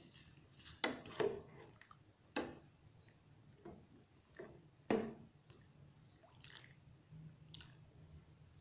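Metal spoon stirring a thick coconut milk fish curry in a metal pot: soft sloshing of the curry, broken by several sharp clinks of the spoon against the pot, the loudest about a second in and about five seconds in.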